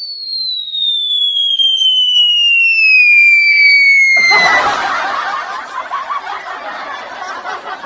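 Cartoon falling-whistle sound effect: one long whistle tone sliding steadily downward, followed about four seconds in by a burst of canned laughter that carries on to the end.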